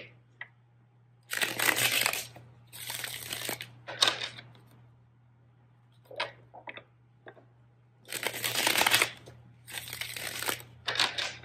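A deck of tarot cards being shuffled by hand, in about six short rustling bursts with pauses between.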